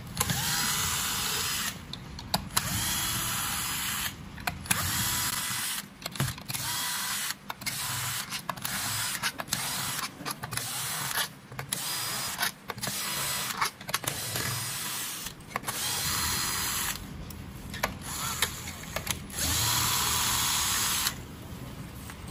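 Bosch cordless drill-driver with a long screwdriver bit backing screws out of a metal casing. The motor whirs in runs of a few seconds at the start and near the end, with many short stop-start bursts in between.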